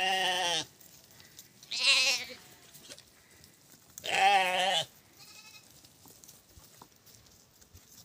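Goats bleating: three wavering calls, each under a second long, about two seconds apart.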